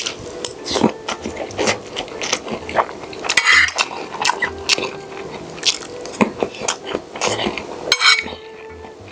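Spoon and fork clinking and scraping on a plate during eating, many short sharp clicks in an irregular run.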